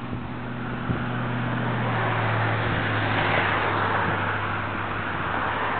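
Vehicle noise: a steady low engine hum under a rush of noise that swells about two seconds in, like traffic passing close by.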